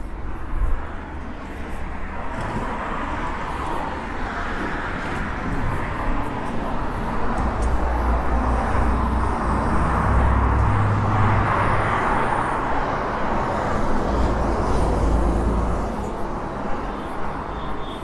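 City street traffic: a continuous wash of car and engine noise that swells as vehicles pass through the middle and eases off near the end, with a low rumble underneath.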